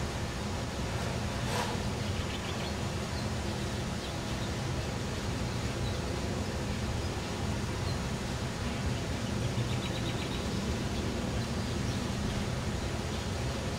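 Steady outdoor rumble with a low, even hum underneath, a brief sharp click about a second and a half in, and faint high chirps twice.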